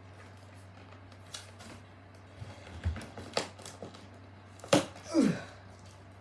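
Scattered taps and knocks from a cardboard box and its packaging being handled and opened, with a sharper knock about three quarters in, followed by a short sound falling in pitch.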